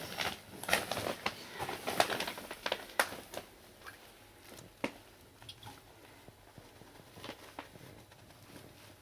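Pigeons in an attic: a busy clatter of taps and scuffles over the first three seconds or so, thinning to scattered single taps.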